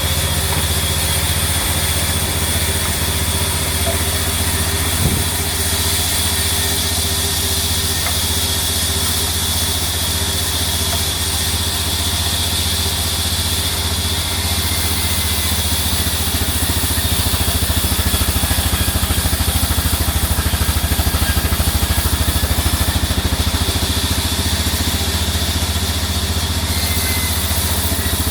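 Sawmill machinery running with a steady engine-like drone. There is a single short knock about five seconds in, and the sound gets a little louder from about two-thirds of the way through.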